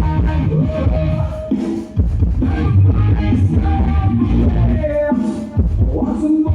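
Rock music with guitar and heavy bass played loud through OHM TRS PA speakers. The bass drops out briefly twice, just before two seconds in and again about five and a half seconds in.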